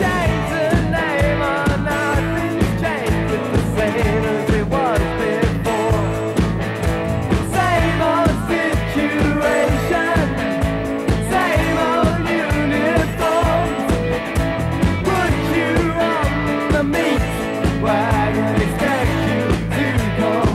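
Late-1970s rock song played by a full band: a male lead voice sings over electric guitars, bass guitar and drums keeping a steady beat.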